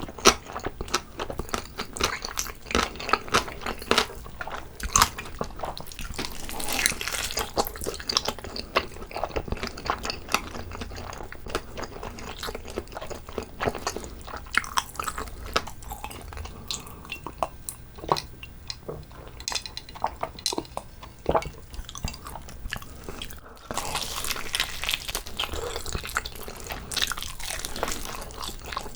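Close-miked chewing and biting of braised pig's trotter: sticky, wet mouth sounds with many irregular clicks and smacks.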